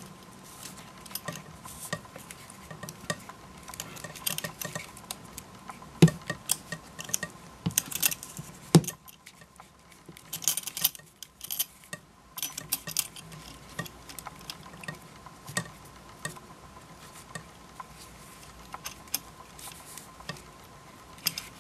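Handling noise of a leather camera hand strap being threaded and pulled through its holder on a DSLR with a battery grip: scattered rustles, taps and small clicks of the strap and its metal fittings against the camera body, with louder knocks about six and nine seconds in. A faint steady tone runs underneath.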